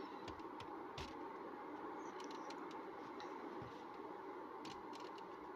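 Faint, scattered plastic clicks of a trim tool prying the clip-fitted dashboard frame off around a Daihatsu Terios's cassette unit, over a steady low hiss.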